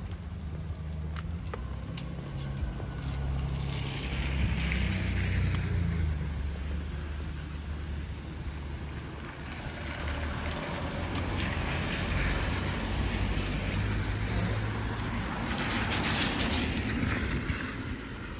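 Vehicles passing on a wet street: a low rumble throughout, with tyre hiss swelling up about four seconds in and again near the end.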